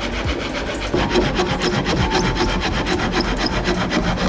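A hand tool rasping through wood in quick, steady strokes.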